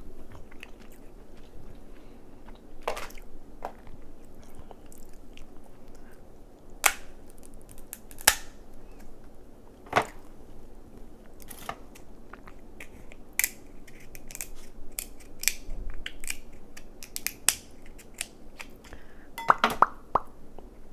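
Close-miked eating of crab: chewing and smacking, broken by sharp cracks and snaps of crab shell spread through, with a quick cluster of them near the end.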